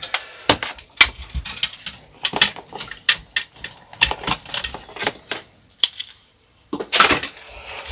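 Irregular clicks and light rattles of plastic and metal parts being handled as a part is worked free inside a small PC case, with a brief louder scrape near the end.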